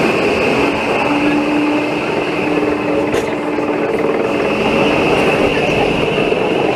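Pilatus Railway electric rack railcar running on its cog rack: a steady running rumble with a steady whine from the drive, and a single click about three seconds in.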